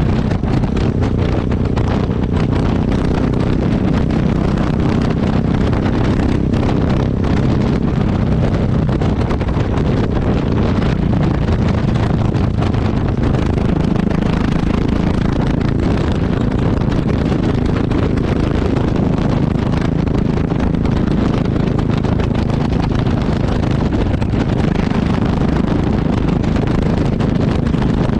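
Yamaha XT660X's single-cylinder engine heard close at the exhaust, running at a steady pace with no marked revving, with wind noise on the microphone.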